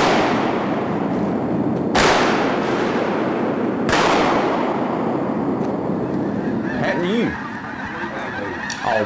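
Two shotgun blasts about two seconds apart, each echoing off through flooded timber, then a run of short duck quacks near the end.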